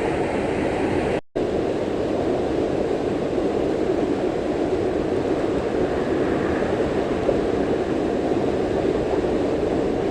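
Steady rush of flowing river water, with a brief dropout about a second in.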